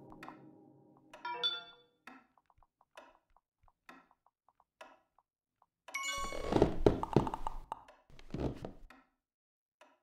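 Heavy thuds, a long loud one about six seconds in and a shorter one near the end of the eighth second, after soft ticks about once every second and a short chime about a second in.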